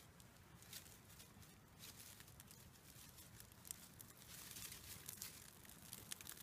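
Faint crackling of a small birch-bark tinder fire catching, with rustling of the bark and twigs as it is tended. The tiny crackles grow more frequent in the second half as the flame takes hold.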